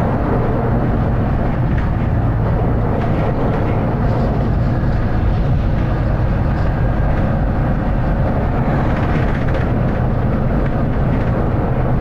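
Volvo B9TL double-decker bus's diesel engine running steadily under way, a loud low drone with rattle from the bus body.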